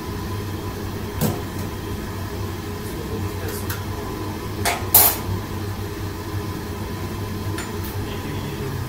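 Steady low rumble of a commercial wok range and kitchen ventilation, with a few sharp metal clinks of a ladle against the pans. The loudest clink comes about five seconds in.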